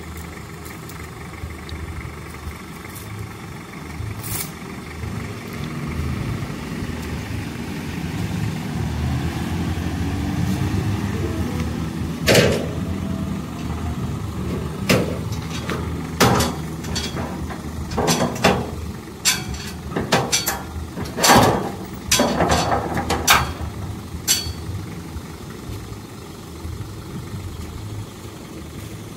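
Engines of a John Deere 3350 tractor and a stuck Isuzu truck running during a chain tow; the engine note rises and grows louder from about six to eleven seconds in as the pull takes up load. In the middle comes a run of sharp metal knocks and clanks.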